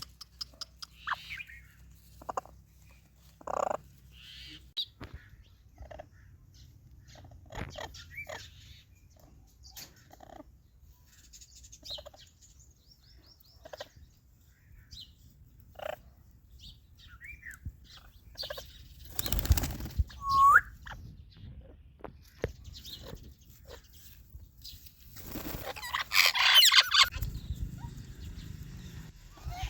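Pet parrots making short, scattered chirps, clicks and calls, with one brief bending whistle-like call past the middle. There are louder noisy bursts in the second half, the biggest near the end.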